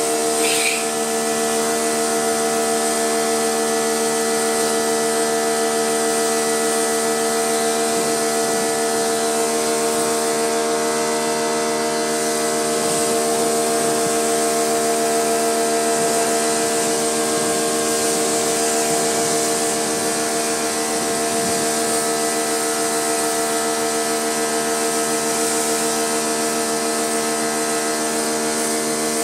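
Pressure washer running steadily, its motor and pump humming under the hiss of the water jet as it rinses foam off a car.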